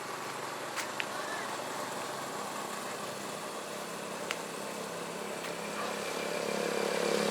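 Motor vehicle engine and road noise running steadily, with a few light clicks, and an engine growing louder near the end.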